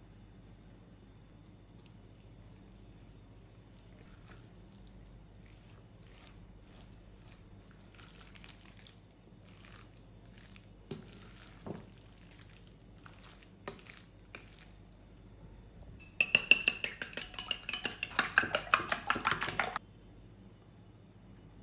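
A utensil working in a bowl: scattered soft scrapes and a few knocks, then a loud, fast, rhythmic clinking of utensil against bowl for about three and a half seconds that stops abruptly.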